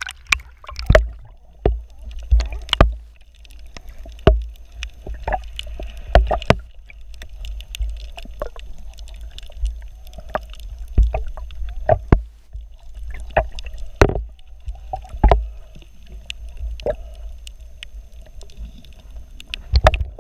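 Water sloshing and muffled underwater sound picked up by a camera in a waterproof housing at and below the surface: a steady low rumble broken by irregular sharp knocks and clicks.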